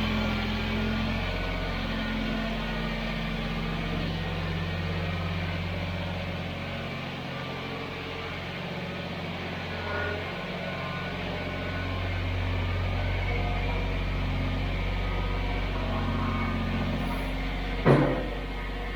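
Kubota BX23S compact tractor's three-cylinder diesel engine running as the tractor is driven a short way, its note rising and falling. One sharp clunk near the end.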